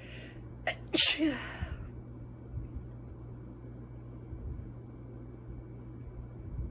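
A woman's stifled sneeze about a second in: a short breathy intake and a brief catch, then one sharp burst that trails off in a short falling vocal sound.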